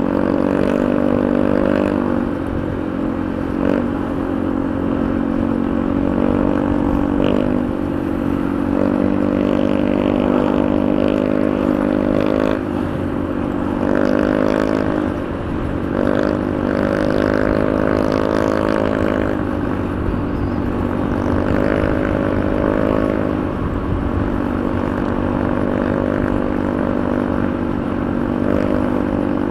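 Honda Beat 110 Fi scooter's single-cylinder engine running while riding, its note dipping and rising several times as the throttle is eased and opened, over a low rush of wind noise.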